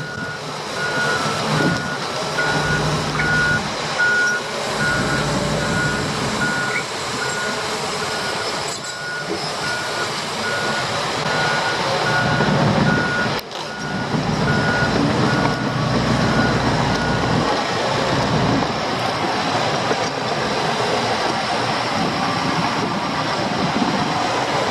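Reverse alarm of heavy earthmoving equipment beeping about once a second over a diesel engine working. The beeping stops about two-thirds of the way through while the engine keeps running.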